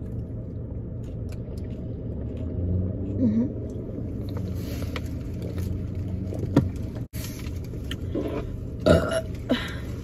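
A person burps loudly about nine seconds in, over a steady low rumble.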